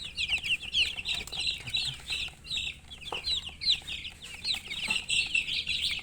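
A group of baby chicks chirping, many short high peeps overlapping several times a second.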